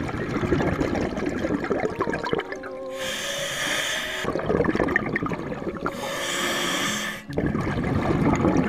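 Scuba diver breathing through a regulator underwater: a hissing inhale about three seconds in and another about six seconds in, with bubbling, gurgling exhales between them.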